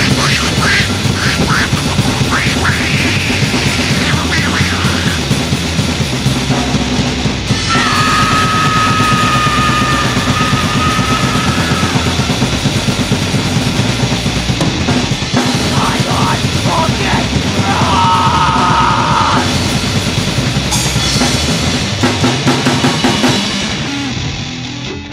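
Extreme grindcore noise music: a dense, distorted wall of noise over drums, with two stretches of a steady, piercing high tone cutting through. The sound drops away at the very end.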